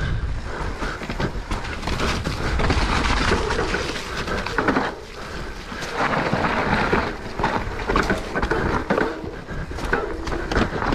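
Mountain bike riding down a rough trail: tyres rolling over dirt and stones, with wind rumbling on the camera microphone and the bike rattling and knocking over bumps.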